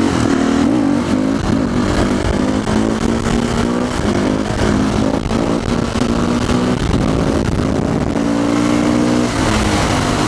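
Motorcycle engine running under way, its revs rising and falling as the bike accelerates and eases off, with wind rush on the rider's mic.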